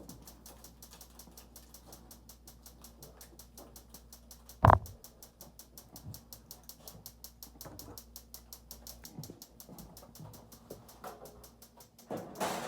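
A gas oven's igniter ticking rapidly and steadily, about seven clicks a second, with its button taped down to keep it on. There is one loud knock about five seconds in and a clatter near the end.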